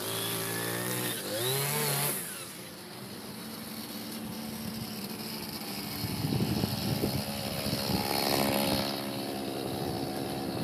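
A freshly serviced brush cutter's small two-stroke engine revving up and down while cutting grass, then running steadier at lower revs; about six seconds in it grows louder and rougher.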